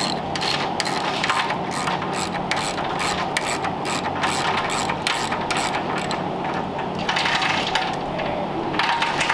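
Ratchet mechanism clicking evenly, about four clicks a second, as the frame is lowered onto the suspension. The clicks fade about six seconds in and pick up again near the end.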